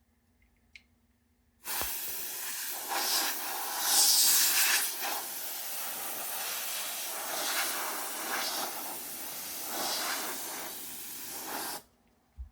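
Can of compressed air spraying into a PlayStation 5's cooling fan and side vents: a loud hiss that starts about two seconds in, swells in several surges, and cuts off near the end.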